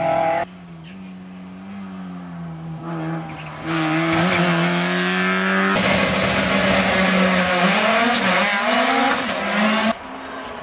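Race car engines, with abrupt cuts between them: first a car running at a steady engine note, then, from about halfway, a Mitsubishi Lancer Evolution rally car's engine revving loudly, with a high whine that climbs over several seconds before it cuts off.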